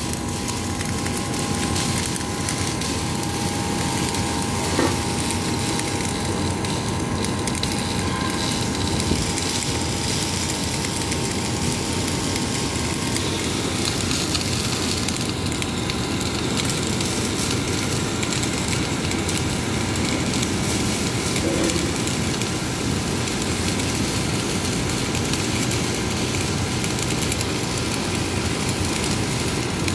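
MIG welding arcs crackling and sizzling steadily as two welders run beads on steel checker plate.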